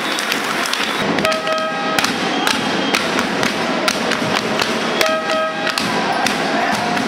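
Handball-hall crowd noise with sharp thuds about once a second. A short held horn-like tone sounds twice, about a second in and again about five seconds in.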